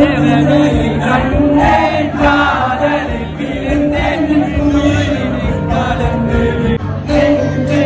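Music with several voices singing together over a sustained accompaniment.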